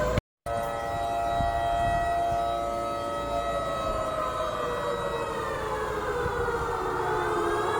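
Civil-defence warning siren wailing as the 10 pm lockdown curfew signal, its pitch falling slowly for about seven seconds and turning upward again near the end. The sound cuts out for a split second just after the start.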